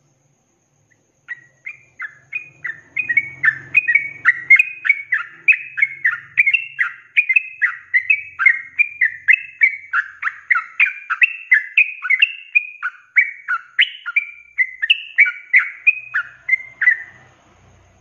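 Yellow-vented bulbul (trucuk) singing a long unbroken run of short whistled notes, about three a second: the rapid, sustained 'ropelan' song. It starts about a second in and stops shortly before the end.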